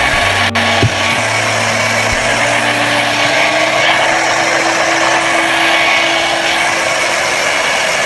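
Handheld hair dryer running steadily: an even, loud rush of blown air with its motor, with a single click about half a second in.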